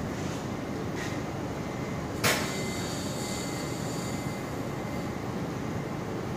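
Steady rumbling hiss of natural gas flowing through a CNG pressure reduction station, with a faint high whistle. A single sharp metallic clack comes about two seconds in.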